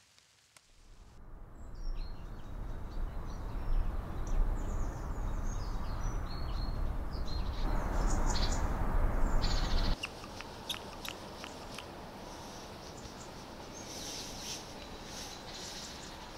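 Small birds chirping, over a loud, steady low rushing noise that cuts off abruptly about ten seconds in. After that, birdsong goes on at a lower level with scattered light clicks.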